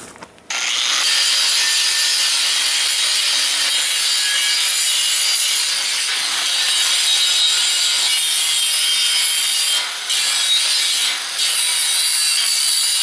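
Angle grinder grinding the cut edges of a door opening in steel plate, a loud steady hiss. It starts about half a second in and eases off briefly twice near the end as the disc is lifted from the steel.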